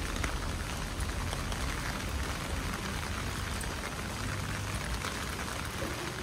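Steady rain falling, with scattered drops ticking close by over a low rumble.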